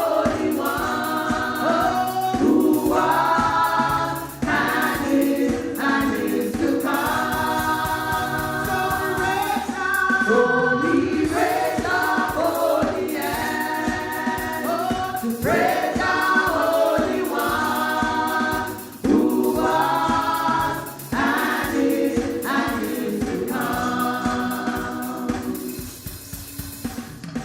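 Gospel choir singing a worship song with band accompaniment, in sustained sung phrases of a few seconds each.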